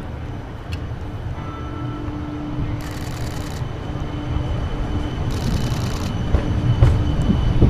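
KC Streetcar (a CAF Urbos 3 tram) running and drawing closer: a low rumble that grows louder, with a faint steady whine. Two short hissing bursts come about three and five and a half seconds in.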